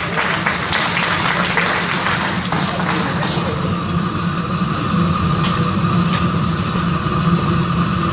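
Steady room rumble of a hall with scattered audience noise in the first few seconds. A thin steady whine comes in about four seconds in.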